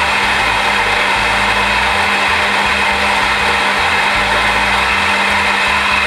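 Macap M5D on-demand coffee grinder running steadily, grinding a timed double-shot dose of espresso into a portafilter: an even whir over a steady low hum.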